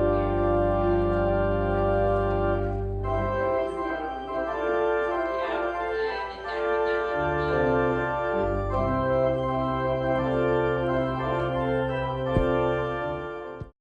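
Organ playing sustained full chords with a bass line that moves a few times, cut off abruptly near the end.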